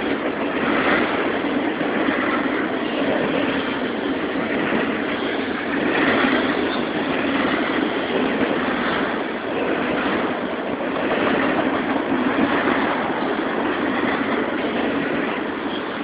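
Union Pacific intermodal freight cars rolling past, a steady noise of wheels on rails that swells and eases slightly every few seconds.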